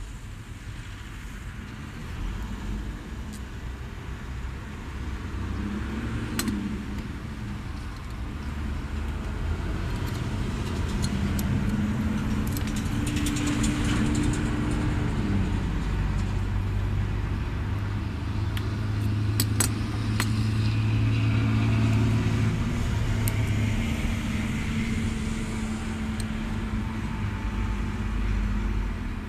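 Motor vehicle engines running nearby, their pitch rising and falling, growing louder about a third of the way in. Occasional light clicks and rattles of plastic cable ties and a small metal tool being handled.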